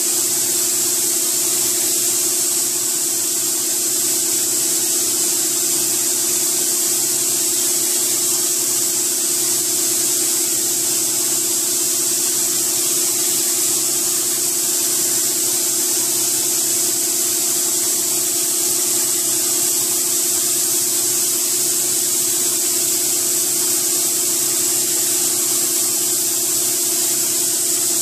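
Compressed air hissing steadily from a gravity-feed automotive spray gun as clear coat is sprayed over a car hood, with a steady hum underneath from the paint booth's fans.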